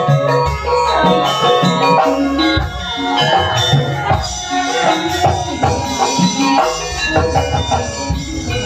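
Live campursari music: a woman singing into a microphone over the band's amplified accompaniment.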